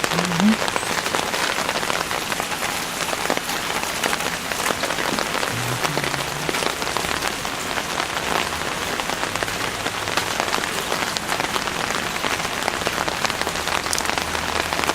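Steady heavy rain falling, an even hiss dotted with many small drop ticks.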